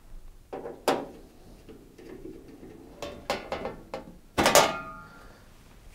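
A screwdriver working on the screws of an oven's stainless-steel top panel: scattered light metallic clicks and scrapes, then a louder metal clatter about four and a half seconds in that rings briefly.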